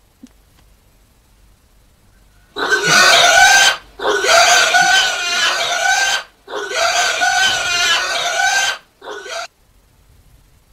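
A pig screaming as it is held down to be slaughtered: three long, wavering squeals of one to two seconds each, starting a few seconds in, then a short last one.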